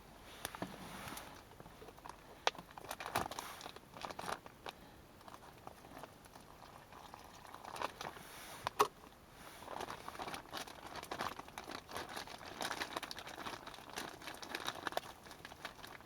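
Plastic bag crinkling and rustling irregularly as groundbait is kneaded and mixed inside it, with a few sharp clicks.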